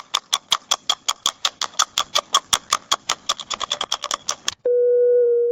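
Rapid series of short electronic beeps, about six a second, for about four and a half seconds. Then it cuts off and a single steady lower electronic tone starts.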